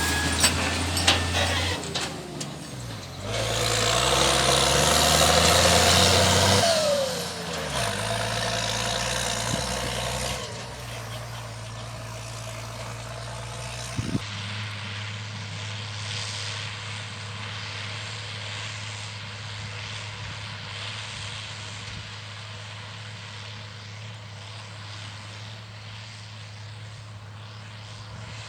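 IHC 1246 tractor's six-cylinder turbo diesel engine, modified to about 170 hp. It revs up hard a few seconds in, its pitch falls back around seven seconds, and after about ten seconds it settles to a steady, quieter run.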